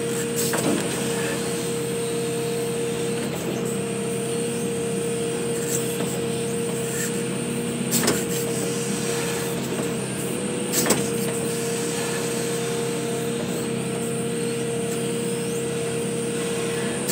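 Excavator's engine and hydraulics running steadily, heard from inside the cab, with a steady whine over the drone. A few sharp knocks cut through as the bucket works in the trench, the loudest about eleven seconds in.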